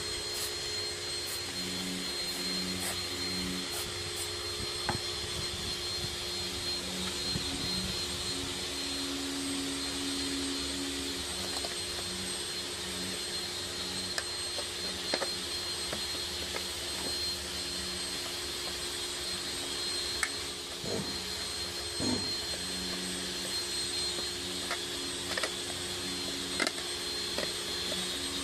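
Steady whirring machine noise, like a motor or fan running, with a constant hum and low tones that come and go. Scattered light clicks and taps of plastic door-mirror parts being handled and fitted.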